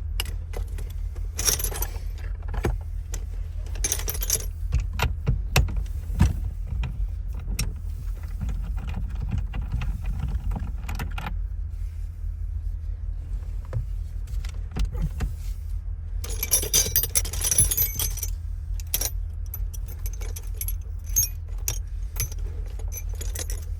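Keys jangling and small metal parts clicking and rattling in short bursts as a steering column is being taken apart for an ignition replacement, over a steady low rumble.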